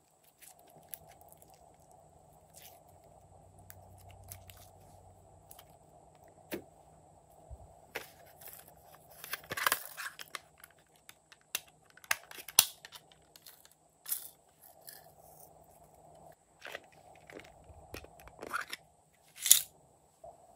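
Glossy slime being stretched, squeezed and peeled from a plastic tub by hand, giving scattered sticky clicks and crackles, the loudest a little under halfway and near the end, over a faint steady hum.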